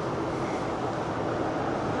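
Allertor outdoor warning siren sounding during a test, slowly growing louder.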